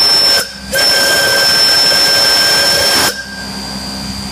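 Steam locomotive Myron H's Lunk single-chime steam whistle blowing two blasts: it cuts off briefly about half a second in, sounds again and stops about three seconds in. The chime is pitched higher than normal and badly worn, which is why it was replaced a week later.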